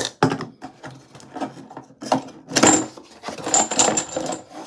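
Handling noises: a run of clicks and knocks, with bouts of rustling about two seconds in and again near the end, as objects are picked up and moved about.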